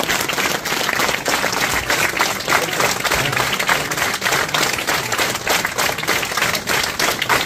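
Audience applauding, many hands clapping without a break.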